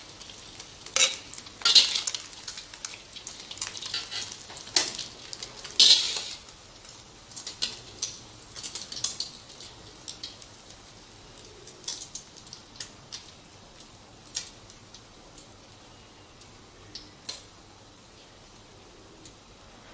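Metal spatula scraping and knocking against a wok while an egg omelette sizzles in oil. The strokes are loudest and thickest in the first six seconds, then come sparse and faint toward the end.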